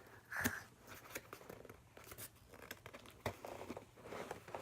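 A box stuffed with squishy toys being handled and pushed shut: scattered faint knocks, clicks and crinkles of packaging, with a sharper knock about half a second in and another about three seconds in.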